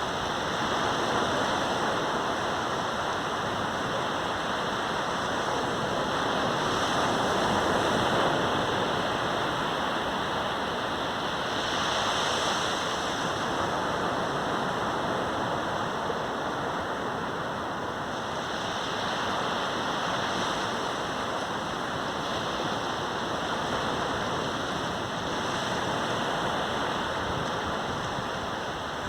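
Caribbean surf washing onto a sandy beach: a continuous rushing hiss of breaking waves that swells and eases every few seconds.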